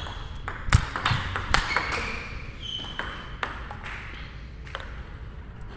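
Table tennis ball clicking off rackets and the table in a short rally, one racket built on a DHS Hurricane King Wang Chuqin blade. About four quick hits come in the first two seconds, then a few scattered bounces.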